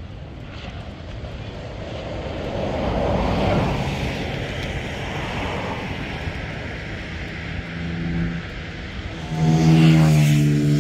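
Engine of a passing motor watercraft, jet ski or speedboat: a rushing engine noise swells to a peak about three seconds in and fades. Near the end a steady, pitched engine tone grows loud.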